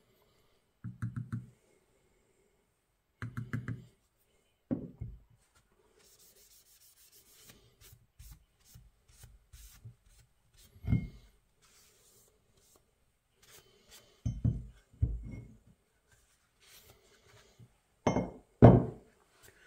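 A rag rubbing over a steel axe head, with scattered thumps of the head knocking against a wooden workbench; two of these, near the end, are the loudest.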